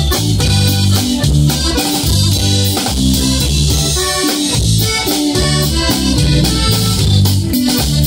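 Norteño band playing a corrido live: button accordion melody over bass, guitar and drum kit, at a steady beat.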